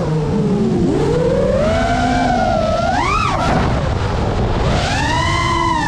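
FPV quadcopter's brushless motors whining, the pitch swooping up and down several times as the throttle changes, with a sharp rise and fall about three seconds in and another climb near the end.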